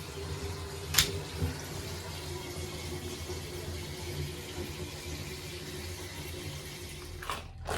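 Bath tap running steadily, water pouring into a filling bathtub, with one sharp click about a second in; the sound stops abruptly near the end.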